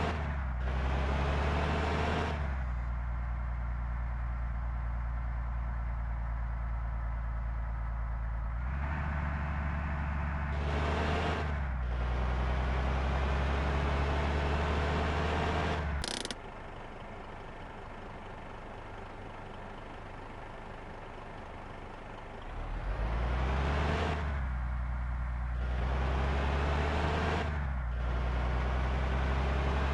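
Large bus diesel engines running, a steady low drone with the sound swelling in several surges. It drops abruptly about sixteen seconds in and builds back up about six seconds later.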